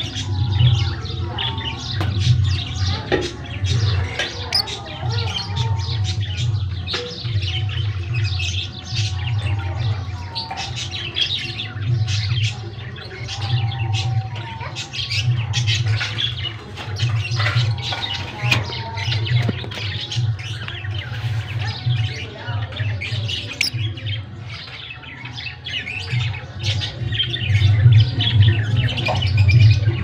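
Lovebirds chattering and squawking, many short high-pitched calls overlapping without a break, over a low droning hum.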